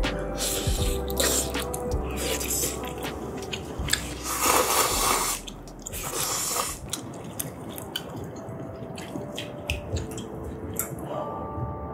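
Close-miked wet eating sounds: chewing and slurping of chewy rice cakes in thick spicy tteokbokki sauce, with small sticky clicks and a louder wet stretch about four to five seconds in.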